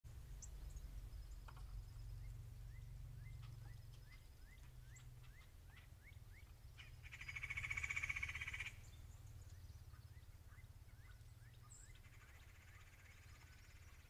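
Faint outdoor animal calls: short rising chirps repeated several times a second, then a louder buzzy, pulsed trill about seven seconds in lasting under two seconds, and a fainter trill near the end, over a low steady rumble.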